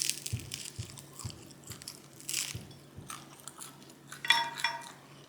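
Close-miked chewing of food with wet mouth sounds and crunching, the jaw working in a steady rhythm of about two strokes a second. A short high-pitched sound comes twice about four seconds in.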